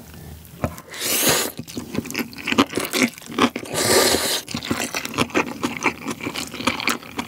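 Chapagetti black-bean instant noodles slurped into the mouth in two long hissing slurps, about a second in and again near four seconds. Wet chewing and lip smacking run between and after them.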